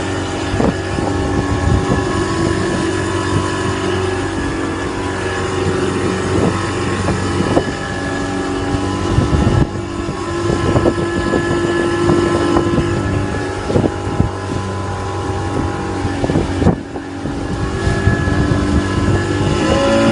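A small fishing boat's engine running steadily under way, with wind buffeting the microphone and irregular knocks throughout.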